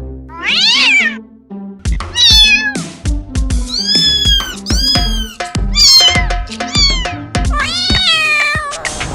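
Domestic cat meowing repeatedly, about seven separate meows, some rising then falling in pitch, over background music with a steady beat.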